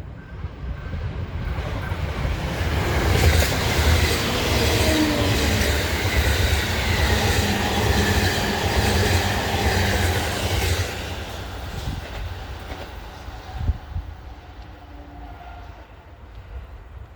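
JR East E353 series limited express electric train passing at speed, its wheels clattering over the rail joints. It builds quickly, is loudest for about eight seconds, then fades away.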